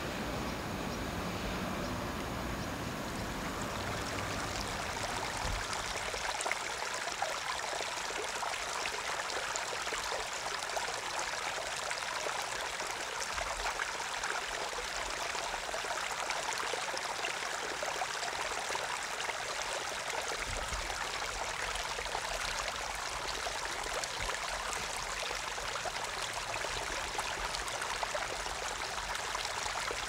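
River water flowing steadily, an even rushing sound, with a low rumble that fades out in the first few seconds.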